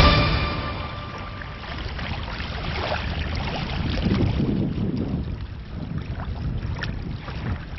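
Music cutting off in the first moment, then wind rumbling and buffeting against the microphone.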